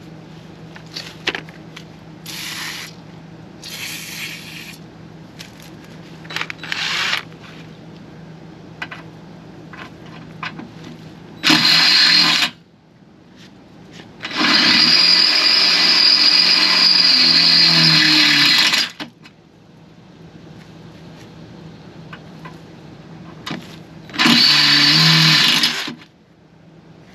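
Cordless drill boring a hole into the trailer's steel frame in three runs: a short one, a long one of about four seconds and a last of about two seconds, its motor pitch wavering as the bit bites. In the first few seconds, a few short hisses of cutting oil sprayed from an aerosol can.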